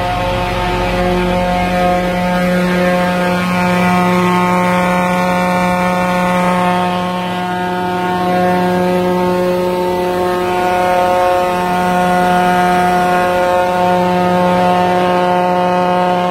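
PTO-driven T30 sewer jetter truck (35 L/min at 5000 psi) running at full revs: the truck engine and high-pressure jetting pump give a steady drone. Spray hisses from the reverse turbine nozzle working in the drain, with mist blowing back out of the pipe.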